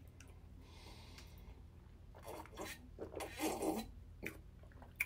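Person drinking water from a glass: faint breathing, then a few soft swallowing and breathing sounds about two to four seconds in.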